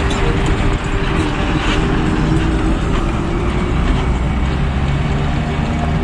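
A large passenger bus driving past on a gravel road, its engine running steadily over the noise of the tyres on the dirt, with other road traffic in the background.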